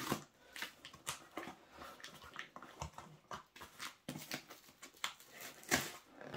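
Utility knife slitting packing tape along the seams of a cardboard box: a string of short scratchy cuts and clicks, the loudest near the end.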